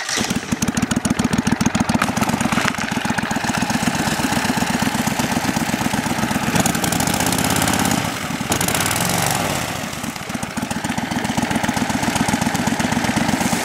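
Kohler Command 25 hp V-twin engine running loud through a homemade muffler while driving a boat propeller, with rapid, even firing pulses. The engine speed dips and changes briefly about eight to ten seconds in.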